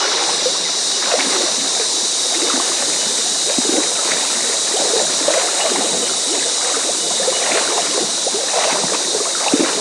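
Creek water running and gurgling over a shallow creek crossing, a steady babbling flow.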